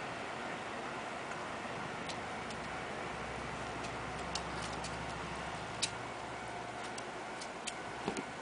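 A West Highland white terrier puppy's claws clicking irregularly on a hard window sill as it moves about, over a steady hiss of room noise.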